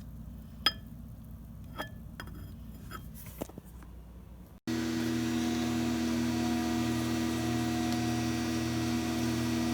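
A few light clicks and clinks, then, after a sudden cut about four and a half seconds in, a microwave oven running with a steady hum.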